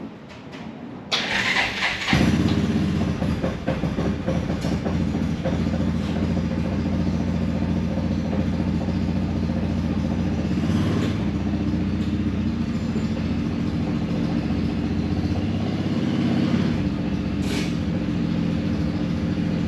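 A 2016 Cub Cadet Challenger 500 UTV's engine turned over by its starter about a second in, catching a second later and then running steadily on its freshly changed oil.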